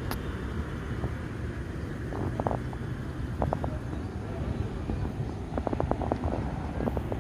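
Steady low outdoor rumble with a few brief high chirps in small groups, about two, three and a half and six seconds in.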